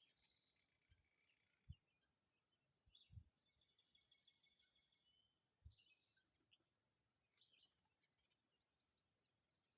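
Faint chirping and twittering of wild birds: many short calls and trills. A few dull low thumps mixed in.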